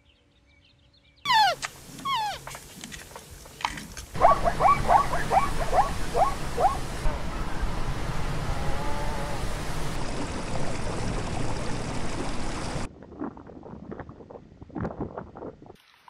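Animal calls in several edited clips. After about a second of near silence come a few quick, high calls that fall in pitch. From about four seconds in, a run of about eight short falling yelps sits over steady background noise, which cuts off suddenly near the end, leaving a few soft clicks.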